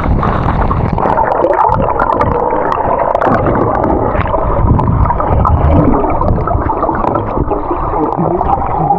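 Loud, muffled rushing and gurgling of water at a waterfall.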